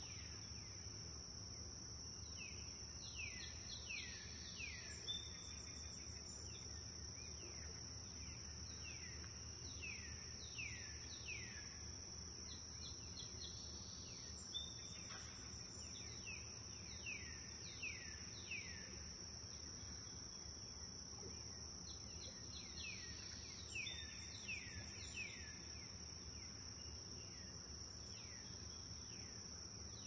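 Nature ambience: a steady high insect chorus runs unbroken, with bird calls of short downward-sweeping notes in small groups coming back every six or seven seconds, over a low steady rumble.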